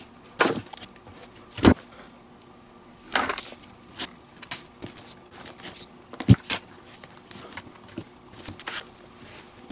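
Leather lace being pulled and worked through the lace holes of a leather baseball glove by hand and with a lacing tool. It gives irregular clicks, knocks and rubbing, with a few louder knocks.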